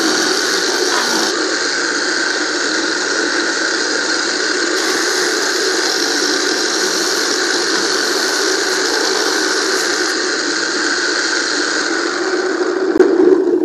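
Electric motor from a used water pump running steadily, its shaft roller shredding coconut husk that is held against it into cocopeat. The sound swells briefly near the end.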